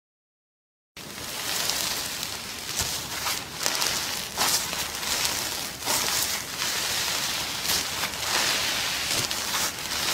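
Crunchy foam-bead slime being squeezed and pulled apart by hand, giving a dense, continuous crackling of many small pops. It starts about a second in.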